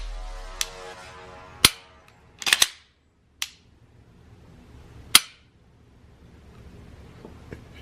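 Dry-fire clicks of a Glock pistol fitted with an SSVI Tyr trigger: five or six sharp mechanical snaps of the trigger breaking and resetting, spaced about a second apart with a quick double click about two and a half seconds in. The loudest snaps come near two and five seconds in. Background music fades out in the first two seconds.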